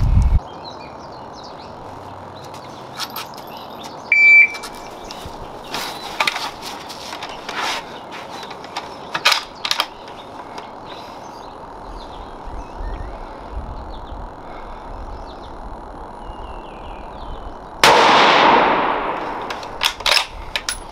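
A shot timer beeps once, a short high tone about four seconds in, followed by scattered clicks and knocks of rifle handling as a kneeling position is built. Near the end a Bergara B14 bolt-action rifle fires a single shot with a long echoing tail, about 13.7 seconds after the beep.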